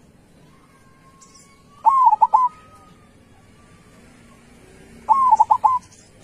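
Zebra dove (perkutut) cooing: two short phrases about three seconds apart, each an arching first note followed by a quick run of short notes.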